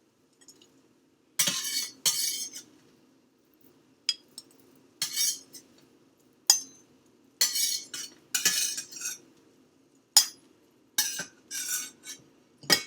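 Spatula scraping and clinking against a pan and a bowl in a dozen or so short, separate strokes as mini pancakes are lifted out and dropped into the bowl, over a faint steady hum.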